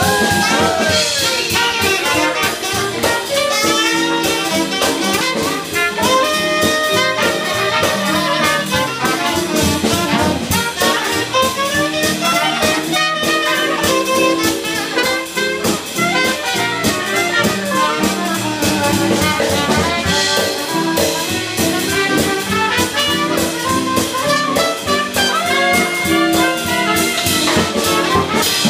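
Live jazz band playing: trumpet and saxophone carry the lead lines over drums, keyboard and guitar.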